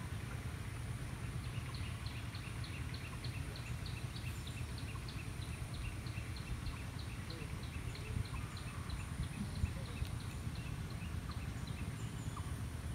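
Steady low rumble of wind on the microphone, with an animal's short high call repeated rapidly, about three or four times a second, starting a second or two in and stopping near the end.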